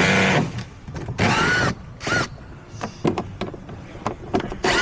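A power tool spinning out the screws that hold a car's fender liner, in four short bursts with a whine that bends in pitch, and small clicks and taps of screws and tool between them.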